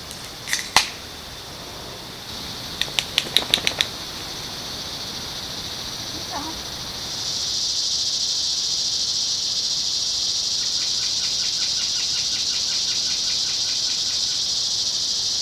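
Steady high-pitched insect chorus that grows louder about seven seconds in. There is a quick series of sharp clicks near the start, and a fast pulsing chirp in the later part.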